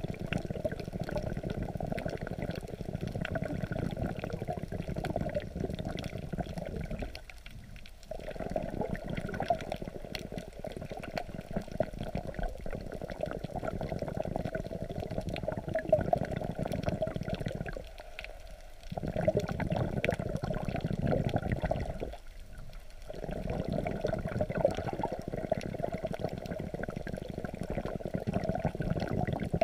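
Seawater sloshing and rushing around a camera held just under the surface as waves move it, heard underwater: a muffled, steady rushing with many small crackles, dropping away briefly three times.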